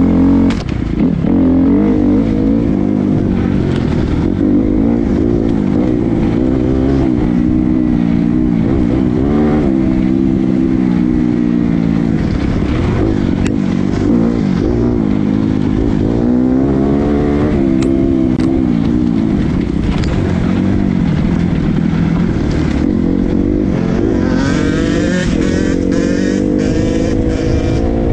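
Dirt bike engine revving up and down as the throttle is worked, its pitch rising and falling every second or two. Near the end it revs higher and harder under acceleration.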